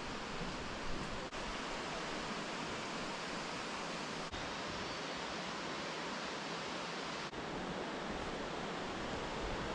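Waterfall: falling water making a steady, even rushing noise, with a brief dip in level about every three seconds.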